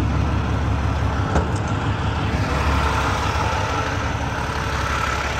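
Semi truck's diesel engine idling steadily.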